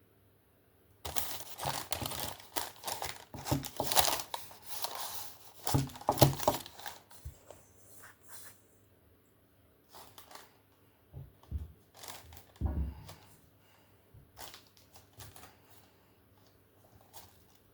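Shortbread dough being worked by hand in a mixing bowl: several seconds of dense crumbly rustling and scraping, then scattered shorter rustles and one dull thud.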